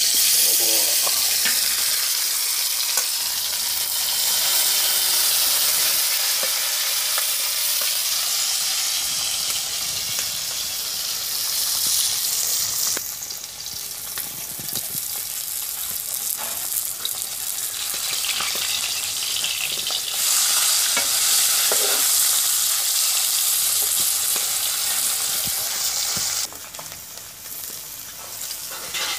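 A whole pohala fish sizzling in hot oil in a kadhai as it fries: a loud, steady hiss that starts as the fish goes into the oil. It drops in level about halfway through and again near the end.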